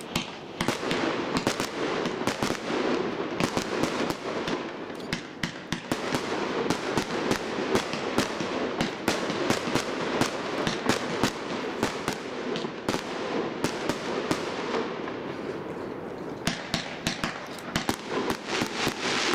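Firework cake (battery) firing a rapid, continuous string of shots, sharp bangs coming several times a second over a steady hiss. The shots thin out around fifteen seconds in, then pick up again.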